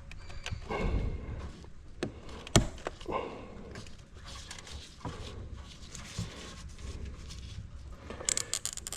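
Irregular clicks, taps and scrapes of a screwdriver working at the plastic switch insert of a Gallagher S100 fence energiser, with one sharp click about two and a half seconds in and a quick run of small clicks near the end.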